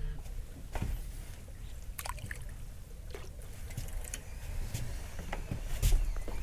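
Water lapping against a small boat's hull with a low steady rumble, broken by a few light knocks and clicks, about one every second or so.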